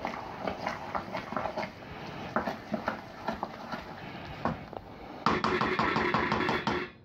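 A spoon stirring milled malt grains into hot water in a stainless steel pot, scraping and clicking against the pot, as the grains are mixed into the mash. The stirring gets louder and busier for the last couple of seconds, then stops just before the end.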